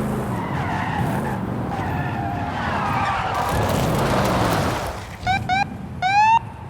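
Lincoln Continental's tyres squealing as the car is driven hard, with a wavering screech over the road noise. Near the end come two short chirps and then a longer rising squeal.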